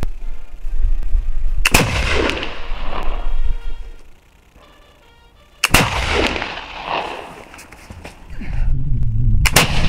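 Black-powder flintlock Baker rifle firing paper cartridges: three sharp shots about four seconds apart, each dying away over about a second.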